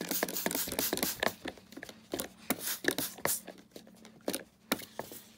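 Trigger spray bottle squirting cleaner onto a vacuum cleaner's base: a quick run of squirts at first, then single squirts about every half second.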